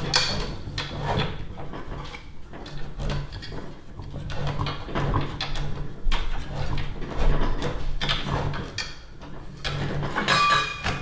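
Tubing cutter being turned around copper pipe, its cutting wheel rasping against the copper in repeated uneven strokes. Near the end comes a short metallic ring as the cut pipe breaks loose.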